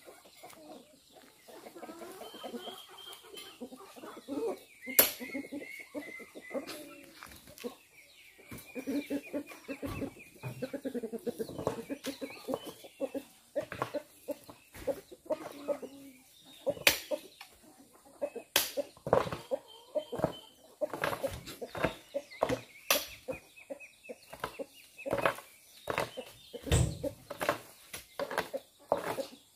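Chickens clucking, with a string of sharp knocks and thuds as oil palm fruit bunches are thrown into a steel dump-truck bed; the knocks come a few seconds apart at first and more often in the second half, and they are the loudest sounds.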